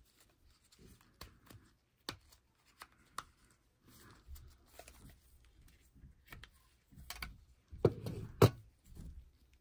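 Gloved hands handling a small plastic USB device and its case: scattered light clicks, rubs and rustles, then two sharper plastic clicks near the end as a cap comes off and the case is opened.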